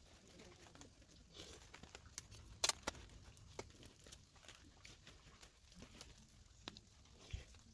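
Quiet scattered small clicks and light rustling, with one sharper click about two and a half seconds in.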